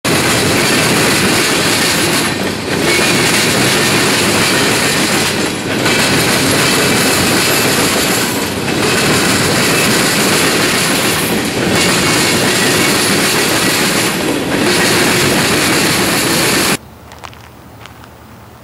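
Freight cars rolling past close by, their steel wheels clattering over rail joints and switches. The sound is loud and dense, with brief dips about every three seconds. Near the end it stops abruptly, leaving only a faint background.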